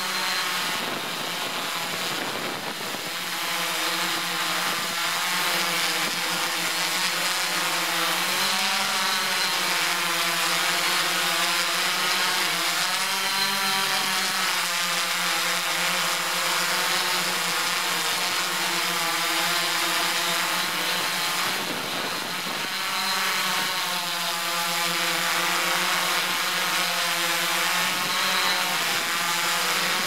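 AirSight 8 multirotor drone's electric motors and propellers humming in flight, a steady buzz whose pitch keeps wavering up and down as the motor speeds change.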